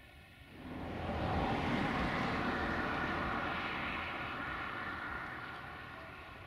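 A car passing on the road, its tyre and engine noise swelling about half a second in and fading away over the next few seconds.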